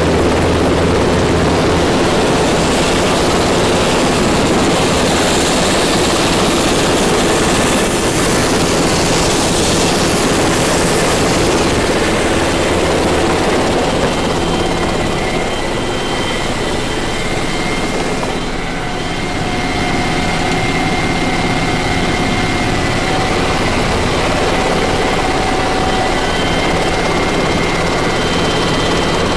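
Sikorsky S-92 coastguard helicopter hovering over the sea, its rotors and turbine engines running loud and steady, heard close up from the winch strops and then from the open cabin doorway. A thin high whine joins the rotor noise partway through.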